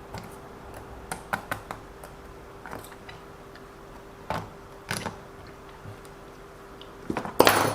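Small plastic and metal parts of an RC car's drivetrain clicking and tapping as they are handled and fitted back together, with a louder scraping rattle near the end and a faint steady hum underneath.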